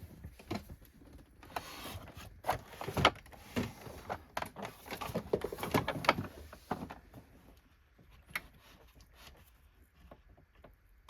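Clicks, knocks and rattles of plastic Hoover upright vacuum parts being handled and fitted back together during reassembly. They are busiest for the first seven seconds, then sparser and fainter.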